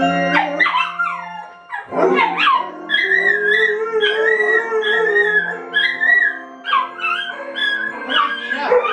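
A large husky-type dog howling in long, wavering notes that rise and fall, with music playing underneath.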